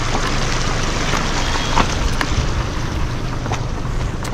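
Vehicle engine running slowly as the car creeps over a rough, rocky off-road track, under a steady noisy rush, with a few faint knocks.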